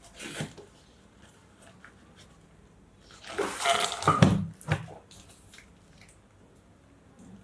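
A large cardboard shipping box being handled: a short scrape just after the start, then a longer spell of scraping and rustling about three seconds in that ends in two thumps.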